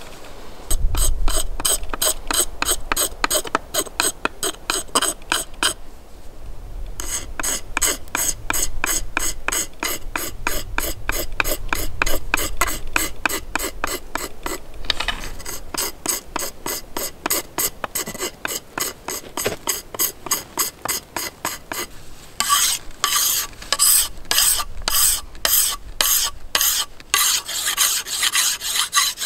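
Rhythmic scraping strokes of a hand tool shaving down a bow stave, about four to five strokes a second, broken by two short pauses. In the last seven seconds or so the strokes turn slower and louder, about two to three a second.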